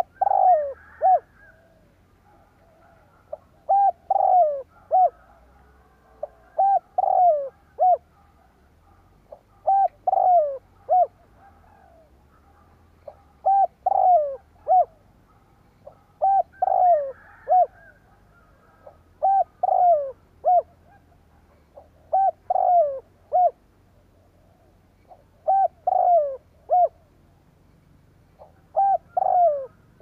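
Spotted dove cooing: a three-note phrase, the middle note longer and falling, repeated about every three seconds, about ten times. This is the dove's territorial crowing call.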